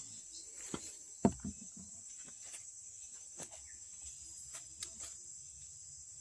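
Steady high-pitched insect chirring, with a few scattered clicks and knocks; the loudest, a single thump, comes just over a second in.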